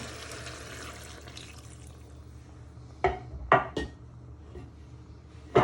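Liquid chicken stock being poured into a pan of ragu, a soft splashing hiss, followed by a few sharp knocks in the second half.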